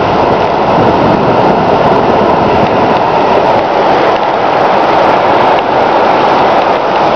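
Flash-flood water flowing fast over a road, a loud, steady rush of water.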